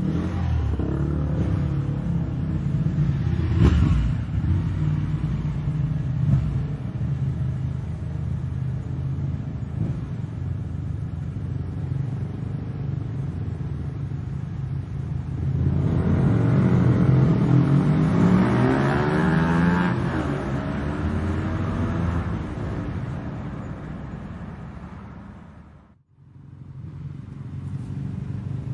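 Motorcycle engines running and revving. About sixteen seconds in a bike passes close by, louder, its pitch rising and then falling. The sound fades out abruptly near the end and then comes back.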